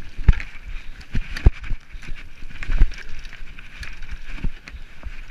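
Mountain bike descending a rough dirt forest trail at speed: steady tyre and rushing noise with irregular sharp knocks and rattles as the bike hits roots and bumps, the loudest knocks about a second and a half and nearly three seconds in.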